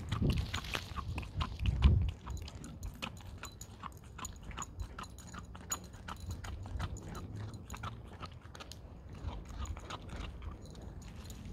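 Greyhound chewing and gnawing a raw beef paddywack: a steady run of wet crunches and sharp bites on the tough tendon, louder in the first two seconds.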